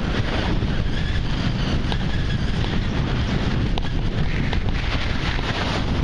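Wind buffeting the microphone of a camera moving down a ski slope: a loud, steady rush that is heaviest in the low end.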